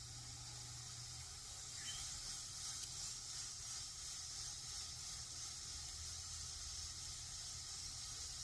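A steady hiss, with a faint low hum beneath it.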